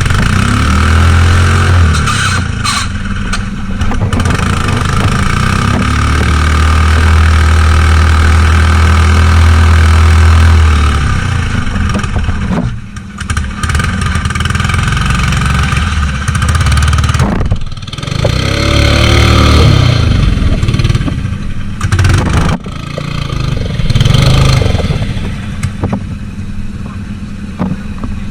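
Mud mower's engine (a riding lawn mower built for off-road mud riding) revving up and down repeatedly under load, held at high revs for several seconds at a time, with a couple of brief drops in between.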